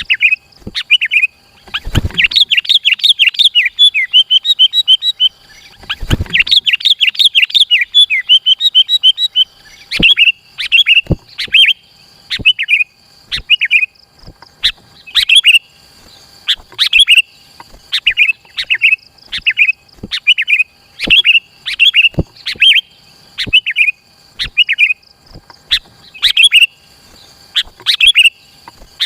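Sooty-headed bulbul (kutilang) singing hard: two long runs of rapid chattering notes starting about two and six seconds in, then short repeated phrases about once a second.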